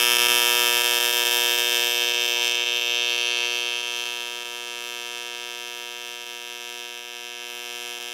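AC TIG welding arc on aluminium from a Miller Dynasty set at 120 amps with no pulse: a steady, even electrical buzz with no beat to it, from the constant current. It gets quieter about four seconds in.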